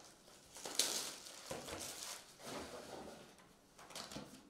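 Cellophane shrink-wrap rustling and crinkling as it is peeled off a trading-card hobby box, with a sharp rustle about a second in, then the cardboard lid being flipped open.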